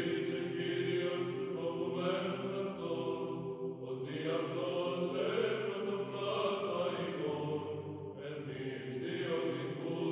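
Background music: slow Orthodox church chant sung by a choir, with long held notes.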